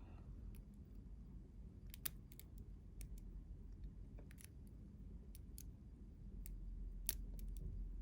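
Small, irregular metallic clicks of a lock pick and tension wrench working the pins of a five-pin Keyosk 77/40 padlock, which has security pins. Two sharper clicks stand out, about two seconds in and about seven seconds in, over a steady low hum.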